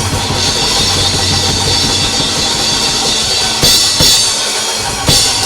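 Live church band music led by a drum kit, with a few hard drum hits and cymbal crashes in the second half.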